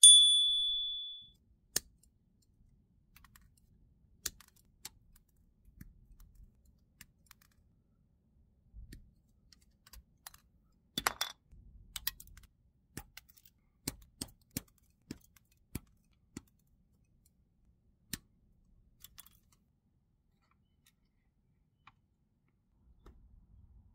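A bright chime rings out at the start and fades over about a second. Then comes a scattered series of sharp clicks: plastic model parts being snipped off the sprue with side cutters, with a quick run of several snips about halfway through.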